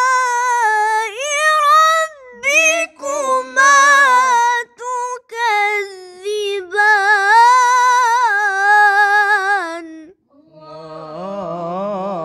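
Qur'an recitation in melodic tarannum style: a single high voice chants long, wavering, ornamented melismatic phrases with short breaks between them. About ten seconds in, a lower, quieter voice takes up the chant.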